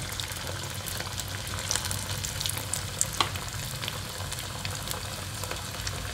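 Flour-dough rolls deep-frying in hot oil in a metal kadhai: a steady sizzle with scattered small crackles and one sharper pop about three seconds in.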